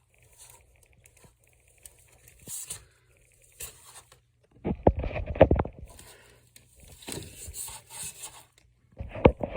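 Handling noise as a heavy mask is worked onto a styrofoam display head. Scattered scraping and rustling, with a dense run of knocks and rubbing about five seconds in and another short one near the end.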